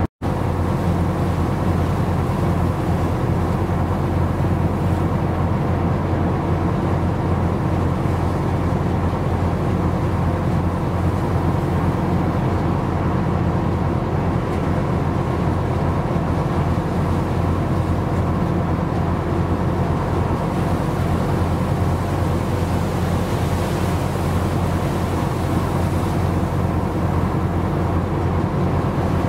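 Steady low hum of a ship's engine and machinery, an even drone with constant undertones that does not change. It drops out for an instant just after the start.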